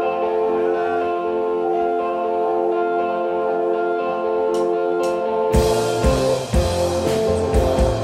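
Live rock band: electric guitars ringing out held chords, with a couple of light cymbal strikes. About two-thirds of the way through, the drums and bass come in and the full band plays.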